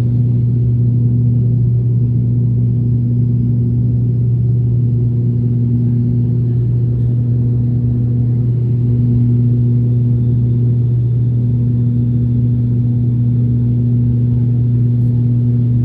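Cabin drone of an ATR turboprop airliner in descent: the propellers and engines give a loud, steady low hum with a second, higher hum above it, over a rush of engine and air noise.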